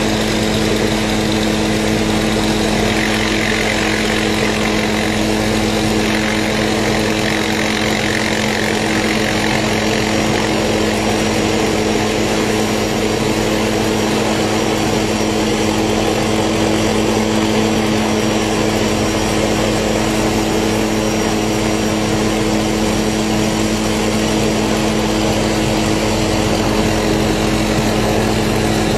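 Light helicopter hovering, its engine and rotor running with a steady, unchanging hum.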